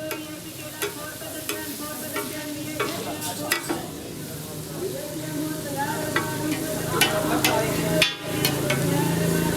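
Mutton pieces sizzling in a karahi, stirred with a metal spatula that clinks and scrapes against the pan again and again. A brief break comes about eight seconds in, and a low hum builds near the end.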